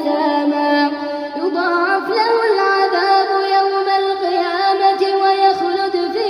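A high, melodic voice reciting the Quran in long, ornamented held notes that slide between pitches without a break.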